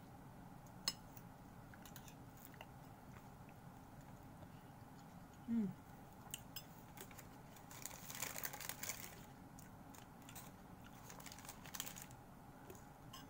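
Close-miked chewing of crisp fruit-salad chunks, with scattered small clicks and a denser run of crunching clicks past the middle. There is a brief falling hum about halfway, and light plastic crinkling near the end.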